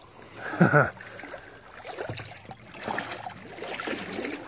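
Shallow creek water sloshing and splashing as people wade through it. A short vocal exclamation comes about a second in and is the loudest sound.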